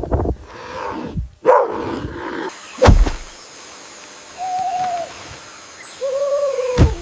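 Owl hooting twice, two steady held hoots, the second lower and longer than the first, after a single sharp thump near the middle.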